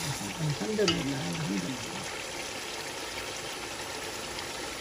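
Meatball koftas frying in oil with whole spices in a pot, a steady sizzle as a spoon turns them. The koftas are being browned (bhuna) in the masala.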